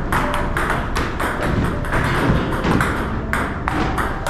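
Table tennis rally: the plastic ball clicking off the paddles and the table at an uneven pace, about two or three hits a second, over background music.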